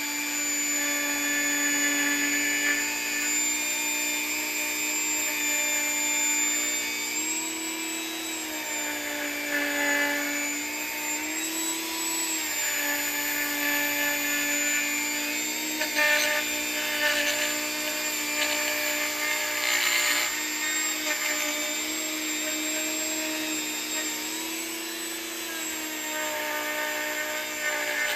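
A handheld electric rotary tool runs at high speed against an aluminium piston crown, cleaning it. It gives a steady whine that dips and recovers in pitch now and then, with bursts of scratchier noise where the bit rubs the metal.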